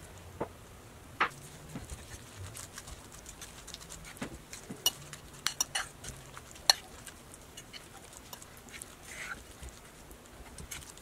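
Mashed banana and rolled oats being stirred in a ceramic bowl by hand and with a fork: faint soft mixing with scattered light clicks of the fork against the bowl.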